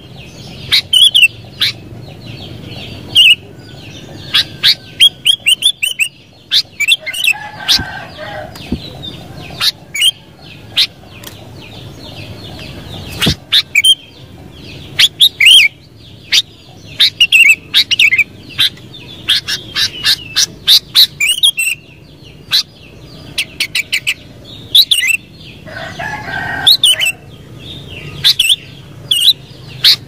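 Sooty-headed bulbul (kutilang) calling: quick sharp chirps and short whistled notes in bursts, with brief pauses between.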